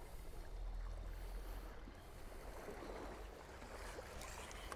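Water lapping and washing against shoreline rocks, over a low steady rumble.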